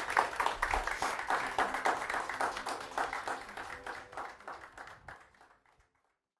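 Audience applauding at the end of a talk, dense clapping that fades out over about five seconds.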